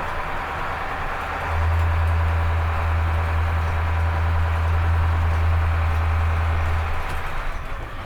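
Bus engine running with a deep, steady drone that gets louder about a second and a half in and drops back near the end.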